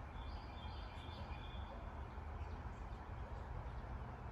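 Faint bird chirps, a few short high notes in the first couple of seconds, over a steady low outdoor rumble.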